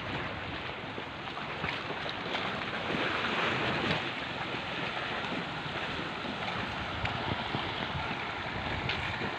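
Wind rushing on the microphone over water sloshing and splashing, a steady noise that swells a little about three seconds in.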